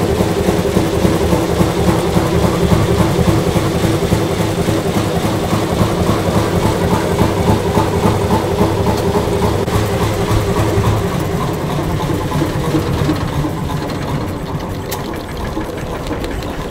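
Large three-cylinder Fairbanks Morse stationary engine running steadily. It gets quieter in the last few seconds.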